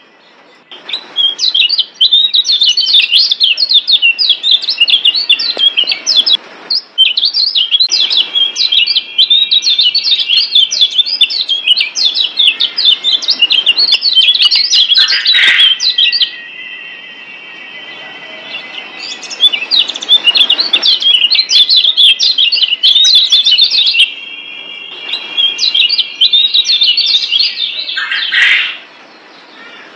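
Lombok yellow white-eye (kecial kuning) singing a fast, chattering song of rapid high chirps in long bouts. The song breaks off briefly twice, just after the start and near the end, and has a calmer stretch of steadier held notes about halfway through.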